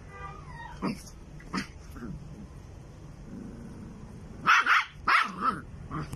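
Dog barking at a cat in play: two short barks about a second in, then a quick run of several louder barks near the end.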